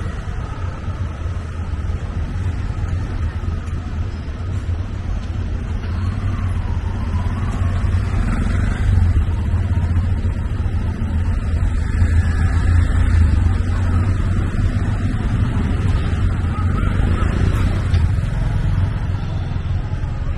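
Steady low rumble of motor vehicle engines and road noise in city street traffic, a little louder in the second half.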